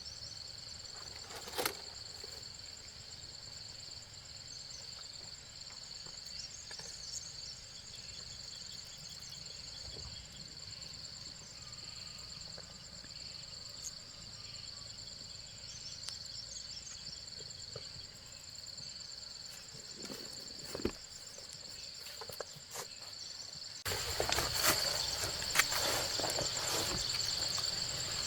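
Insects in the surrounding vegetation keep up a steady, high-pitched trilling chorus, with a few sharp knocks along the way. The chorus gets louder about three-quarters of the way through, joined by more frequent clicks and knocks.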